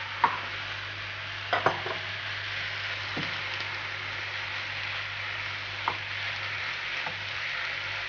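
Ground-meat taco filling with corn and red beans sizzling steadily in a frying pan, taco sauce just poured in, while a spatula stirs it. The spatula knocks against the pan about six times, loudest in the first two seconds.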